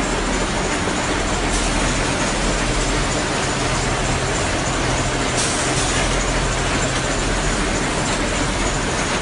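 Steady din of tissue roll production machinery running: a constant mechanical noise with a faint high whine and a low hum. A couple of brief sharper noises stand out, one about a second and a half in and one past the middle.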